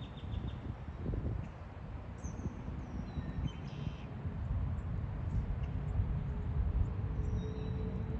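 Outdoor lakeside ambience: a steady low rumble with a few short, high bird chirps scattered through it, and a quick run of faint ticks at the very start.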